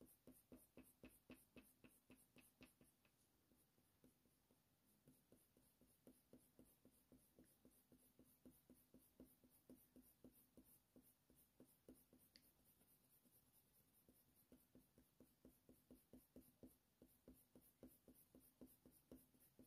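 Very faint scratching of a Faber-Castell Polychromos colour pencil on hot-press watercolour paper: short, quick fur strokes in runs, with pauses between.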